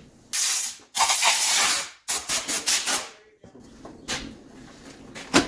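Bursts of hissing: two longer blasts, then a quick run of short spurts that fade away.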